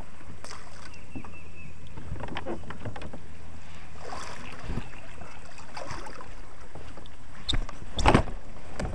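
A kayak moving on a creek: water sounds and small knocks of the paddle and hull, over a steady low rumble, with two louder sharp knocks near the end.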